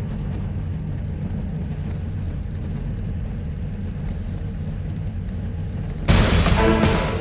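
Steady low rumble of wind and road noise during a bicycle race. About six seconds in, loud music with drum hits cuts in.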